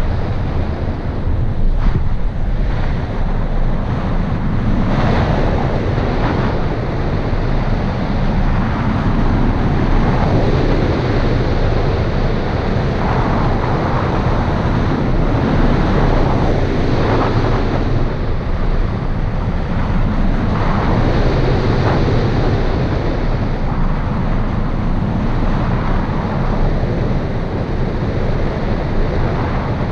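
Airflow rushing over the microphone of a camera mounted on a hang glider in flight: a loud, steady rush of wind noise that swells and eases now and then.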